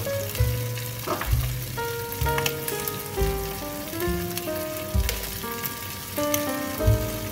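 Kidney beans frying and sizzling in a non-stick pan as a spatula stirs them, under background music with a stepping melody and a heavy bass.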